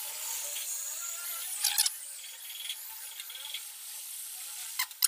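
Metal tweezers clicking against a TV motherboard as a small 431 regulator part is set in place for soldering: a few sharp clicks about a second and a half in and a cluster near the end, over a steady faint hiss.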